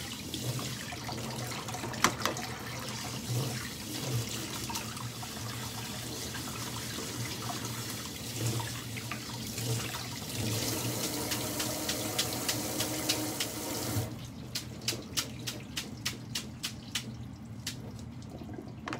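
Kitchen tap running onto boiled noodles in a stainless steel sink as they are rinsed and chilled for hiyashi chuka, with a sharp knock about two seconds in. The running water stops about fourteen seconds in, giving way to a run of drips and light taps as the noodles drain.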